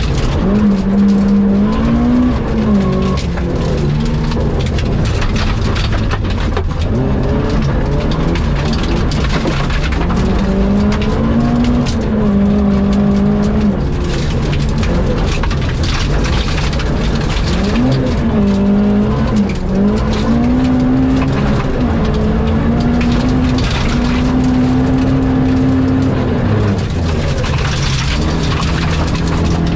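Rally car engine running hard, its pitch repeatedly climbing and then dropping sharply as it changes gear, over steady road and tyre noise. Near the end it settles to a lower, steadier note.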